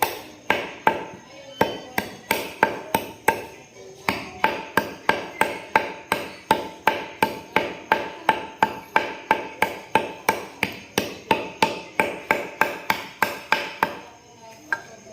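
Steady hammering, about three blows a second, each with a short ring; it stops about a second before the end, followed by one light tap.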